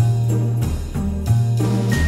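Background music with a steady beat and bass line, with jingle bells.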